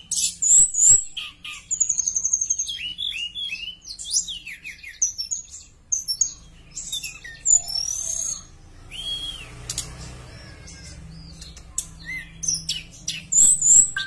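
Caged tledekan, a Cyornis blue flycatcher, singing a rapid, varied run of high whistled chirps and trills. The notes are densest at the start and near the end, with sparser notes and a single arched whistle around the middle.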